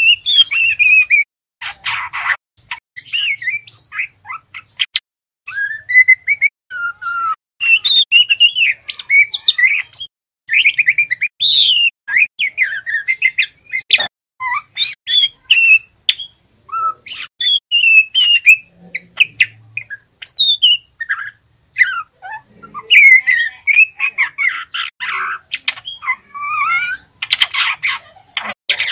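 Juvenile male white-rumped shama practising its song: a rambling run of short, varied chirps and twittering whistles, many sliding in pitch. Harsh rasping notes come about two seconds in and again near the end.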